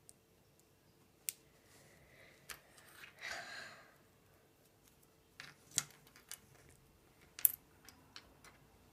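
Small plastic LEGO minifigure pieces being handled and clicked together, a handful of sharp separate clicks with a short rustle of handling about three seconds in and the loudest click near the end.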